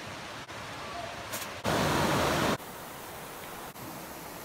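Steady rushing of a shallow creek running over rocks. A louder stretch of about a second comes in and cuts off suddenly in the middle.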